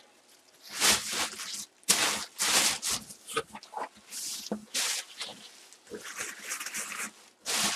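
Cardboard box packaging being handled: irregular rustling and scraping in short bursts with brief pauses between them.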